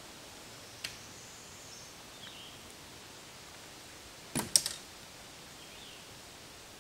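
Folding camp cot's frame clicking as its end bar is levered into place: one sharp click about a second in, then a quick run of sharp clicks just past the middle as the red tension lever is pushed shut.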